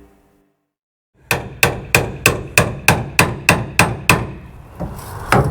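Hammer blows, about ten quick, evenly spaced strikes at roughly three a second, each with a short ringing tone, then a single strike near the end.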